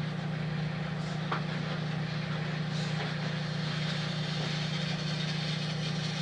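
Microwave oven running: a steady low hum with fan noise, and a faint click about a second in.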